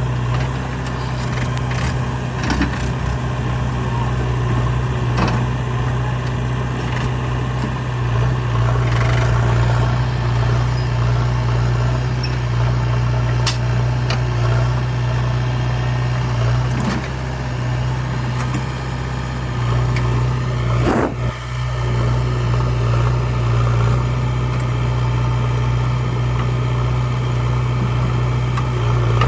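Heavy diesel engine running steadily at a low hum, with a few brief knocks.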